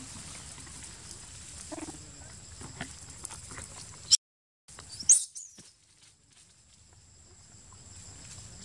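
Macaques scuffling over dry leaf litter, with a steady high insect drone behind. About four seconds in there is a sharp click and a brief dropout, then a short high-pitched call.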